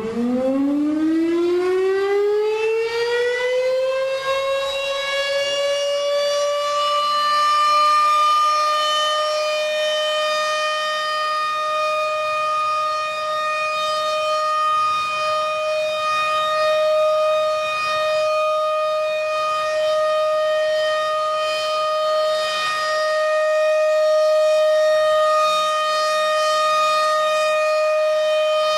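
Federal 500 electro-mechanical fire siren winding up, its pitch rising for the first few seconds, then holding one steady, loud tone. The steady tone is the call signal that summons the Rural Fire Department.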